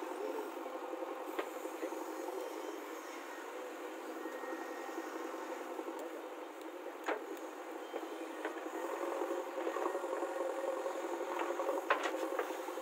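JCB 3DX backhoe loader's diesel engine running steadily as the backhoe digs soil, with a few sharp knocks. The engine gets louder in the last few seconds as it works harder.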